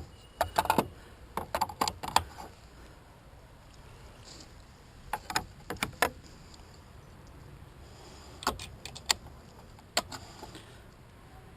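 Metal parts of a pump guard clinking and rattling as they are handled and fitted, in several short clusters of sharp clicks.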